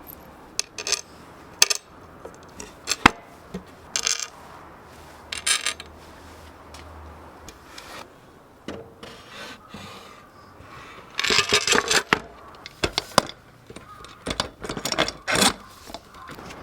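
Irregular metallic clinks, clatters and scrapes of hand tools and small metal parts being handled and set down, with two denser bursts of rattling in the second half.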